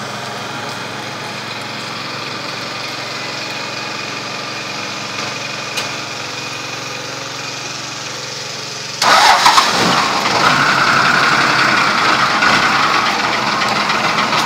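An engine running steadily at idle. About nine seconds in, it gives way to a sudden, much louder, rougher rush of noise that continues.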